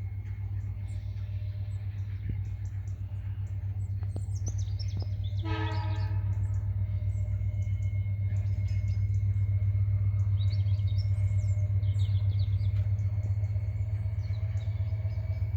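Approaching EMD GT26 diesel-electric locomotive with a steady low engine drone that grows louder. About five and a half seconds in it gives one short horn blast of several tones. Birds chirp throughout.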